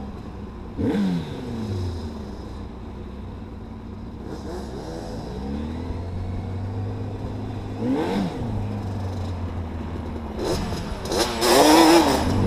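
Quad bike (ATV) engines running and revving while riding. Short rises and falls in engine pitch come about one, five and eight seconds in, and a louder, harder rev comes near the end.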